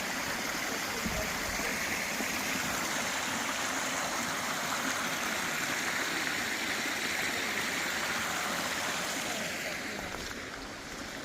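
Flowing stream water, a steady rushing that fades somewhat near the end.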